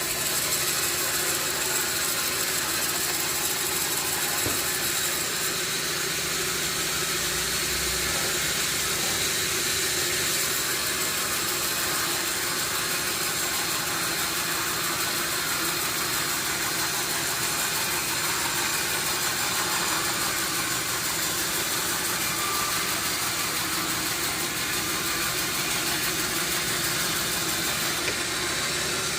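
Sawmill machinery running steadily, a constant mechanical drone with a hiss over it.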